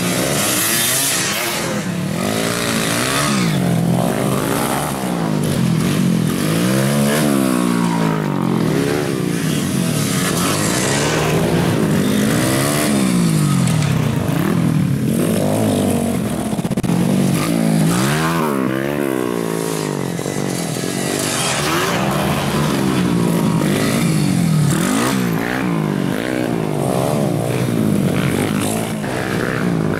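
Off-road trail motorcycles riding a dirt track, engines revving up and dropping back over and over as the throttle opens and closes, one bike after another.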